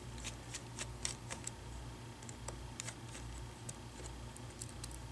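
Small screwdriver backing out a tiny screen-mount screw on an ASUS C200 Chromebook: faint, irregular ticks and clicks of the metal tip and the screw, over a steady low hum.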